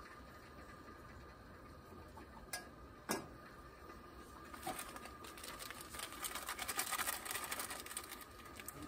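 Two sharp clicks, then a fast run of clicking and rustling that grows louder, as cooking gear and packaging are handled at a camp stove.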